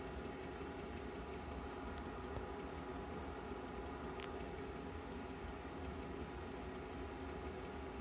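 Glowforge Plus laser cutter's cooling system and a separate external exhaust fan running, a steady hum with a few fixed tones, just after the laser cutter is powered back on. Faint, irregular ticking runs over the hum.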